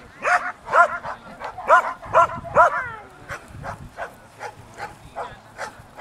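Belgian Malinois barking at a decoy during protection work: about five loud barks in the first three seconds, then a run of quicker, fainter barks.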